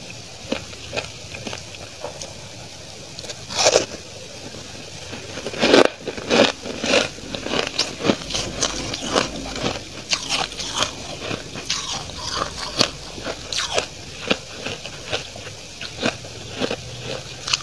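Freezer frost being bitten and chewed, a run of crisp, irregular crunches: scattered at first, then one loud crunch a little before four seconds in, thickening into a dense run of crunches from about six seconds in.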